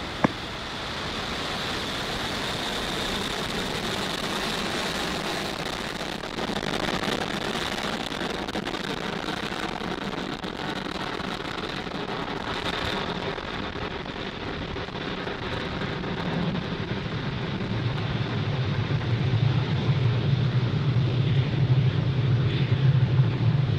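Falcon 9 first stage's nine Merlin 1D engines firing during ascent: a continuous rushing noise. About 13 s in, the highest hiss drops away, and a low rumble grows louder over the last several seconds.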